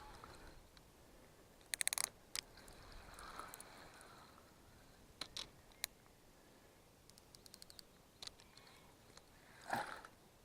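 Fishing reel clicking in short bursts as a hooked carp is played: a quick run of fine clicks about two seconds in, a few single clicks, and another short run later.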